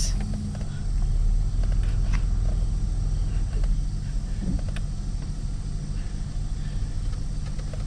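Car driving slowly, heard from inside the cabin: a steady low rumble of engine and tyres.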